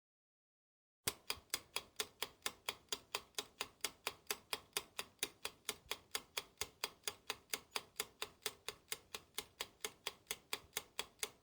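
Clock ticking sound effect, about four even ticks a second, starting abruptly about a second in after dead silence.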